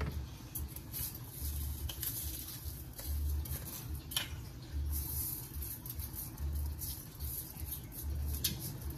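A metal spoon scraping and knocking against a stainless steel mesh colander as cooked rice is scooped out, with a few sharp clicks, over a steady high hiss. A low hum pulses on and off about every second and a half.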